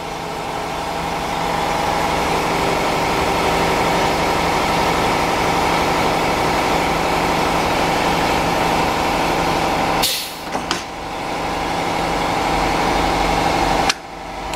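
Hunter TC3500 rim clamp tire changer's turntable drive running steadily as the clamp table rotates. It breaks off with a short hiss about ten seconds in, starts again, and stops near the end.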